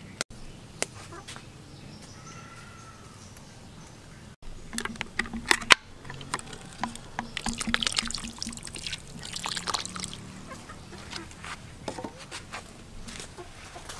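Water pouring and trickling in a large cooking pot, with small clicks and knocks; quiet at first, it gets busier about four seconds in.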